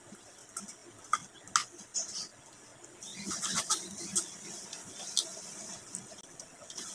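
Eating sounds: lip smacks, sucking and chewing as meat is gnawed off boiled chicken pieces held in the hands, heard as scattered short sharp clicks. A steady hiss comes in about three seconds in.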